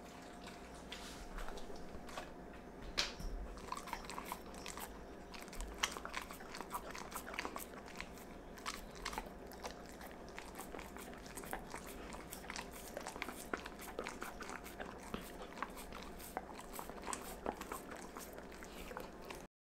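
A dog licking food scraps off a wooden cutting board, with wet tongue smacks and many small irregular clicks. The sound cuts off suddenly near the end.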